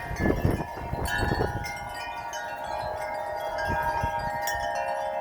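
Metal wind chimes ringing in strong, gusty wind, many overlapping tones struck afresh about a second in and left to ring on. Wind buffets the microphone with low rumbles in the first second or so.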